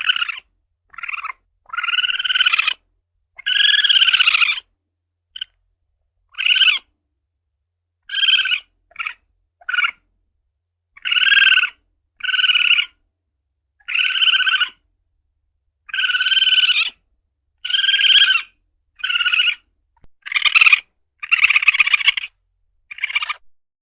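Asian palm civet calls: a string of short, harsh, piercing calls, some clipped and some drawn out to about a second, coming roughly one a second with dead-silent gaps between them.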